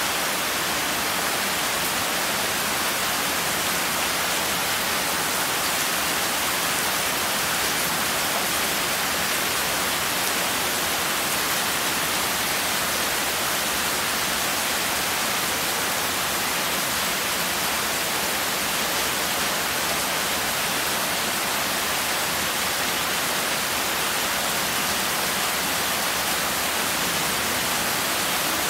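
Heavy rain in a steady downpour: a dense, even hiss that does not let up.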